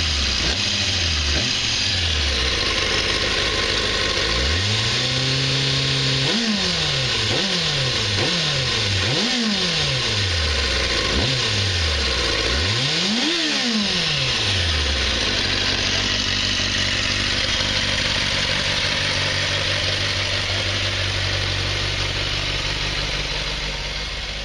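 1994 Kawasaki ZXR400's inline-four engine being revved by hand with quick throttle blips, the revs shooting up and dropping back several times. One longer rise is held briefly, and the highest blip comes a little past halfway. It then settles into a steady idle for the last nine seconds or so.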